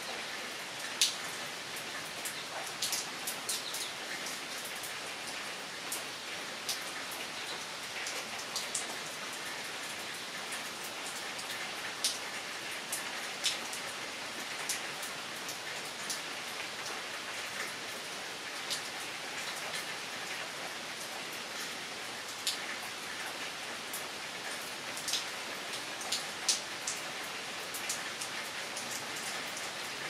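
Steady rain falling, an even hiss with irregular louder drips of single drops hitting leaves and surfaces close by.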